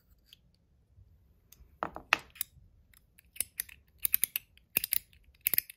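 All-metal ratchet/haptic-coin fidget (AntDesign Comma 2.0) clicking as its parts are turned against each other: a soft knock about two seconds in, then a run of sharp, crisp clicks in small bunches.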